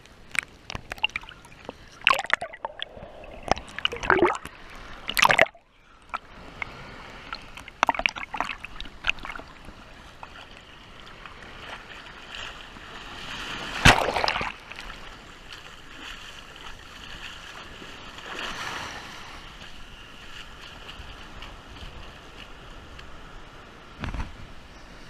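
Shallow sea surf washing against a camera held at the waterline: sharp splashes and sloshing, the loudest splash about halfway through as a wave breaks over it, then a steady hiss of small waves on the sand.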